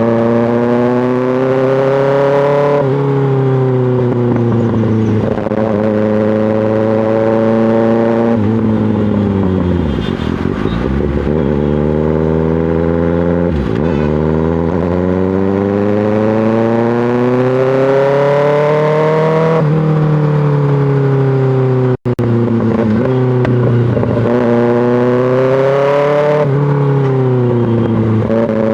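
2024 Kawasaki ZX-6R inline-four running through an M4 GP slip-on exhaust while riding in traffic. The engine note climbs, drops sharply at each upshift, falls away as the bike slows about a third of the way in, and then pulls up through the gears again. The sound cuts out for an instant about 22 seconds in.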